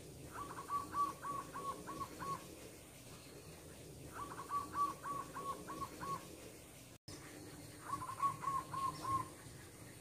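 Zebra dove (perkutut) cooing three times, each call a quick run of five to seven short, evenly spaced notes.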